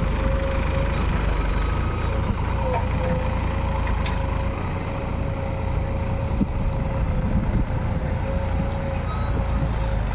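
JCB backhoe loader's diesel engine running steadily under work, with a steady whine held above the engine rumble and a few faint clicks a few seconds in.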